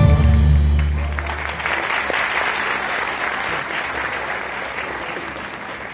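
Audience applauding as the dance music's last low note dies away about a second and a half in; the clapping slowly fades toward the end.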